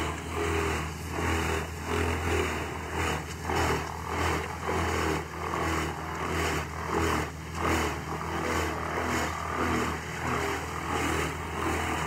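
BRUKS whole-tree wood chipper running under load as trees are fed in: a steady engine drone with frequent, irregular cracking and crunching as the wood is chipped.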